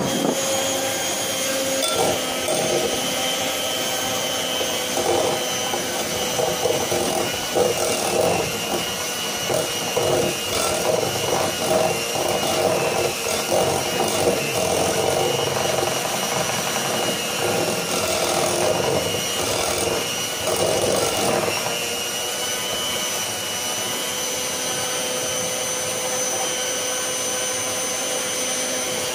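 Electric hand mixer running steadily with a constant motor whine, its beaters whipping egg yolks and sugar in a glass measuring cup. From about two seconds in until about three quarters of the way through, the beaters rattle and knock irregularly against the glass, then the motor runs on smoothly.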